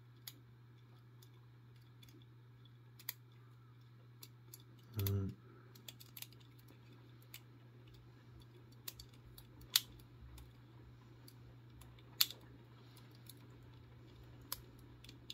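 Small, sharp metallic clicks and ticks of a lever pick and tensioner working the levers inside a five-lever padlock, about a dozen at irregular intervals, over a steady low hum.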